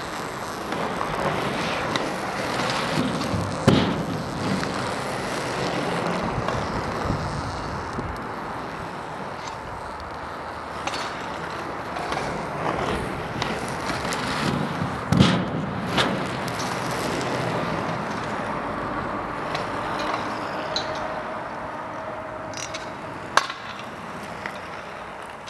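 Inline skate wheels rolling over rough asphalt and up a quarter pipe, with a sharp thud of a landing about four seconds in, another about halfway through, and a lighter one near the end.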